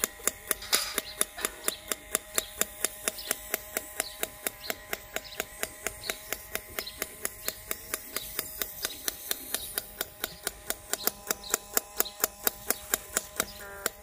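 Small electric-motor drive of a DIY model motorbike running, with a steady whine and a regular click about four times a second.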